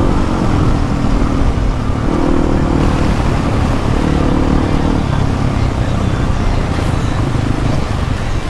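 Motorcycle engine running as the bike rides over rough ground, its note rising and falling with the throttle, over a heavy low rumble of wind on the microphone.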